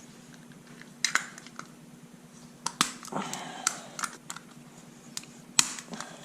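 Hand tools working on a motorcycle: scattered sharp metallic clicks and clinks, with a short scraping rattle a little past three seconds in. A faint steady hum runs underneath.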